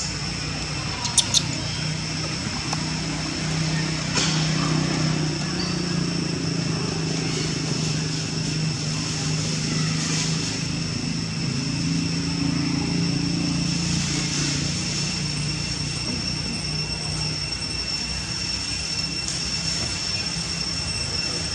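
A distant engine drone that swells and fades over about fifteen seconds, with a steady high-pitched whine throughout and a few faint clicks near the start.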